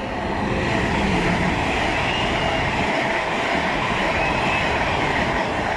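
An LNER Azuma high-speed train passes at speed with a loud, steady rush of wheels on rail. The noise builds over the first second and starts to fade near the end as the train goes by.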